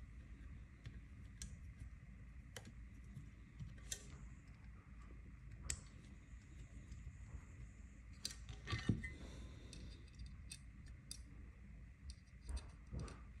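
Small metal parts of a crossbow's aluminium magazine clicking and tapping as they are fitted together by hand. The clicks are scattered and sharp, with a quick cluster about eight to nine seconds in that holds the loudest one.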